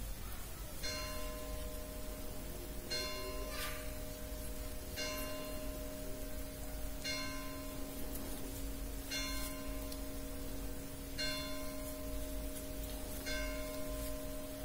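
Bell tones struck about every two seconds, each leaving a steady ringing hum that carries on under the next strike.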